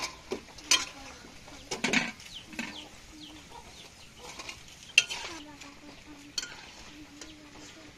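Slotted steel spoon knocking and scraping against a steel kadhai and plate as deep-fried manchurian balls are lifted out of hot oil, over a soft sizzle of frying. There are a few sharp clanks, the loudest about five seconds in.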